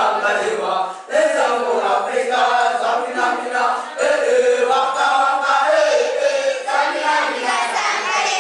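A group of schoolboys singing and chanting together, in phrases that break off briefly about a second in and again about four seconds in.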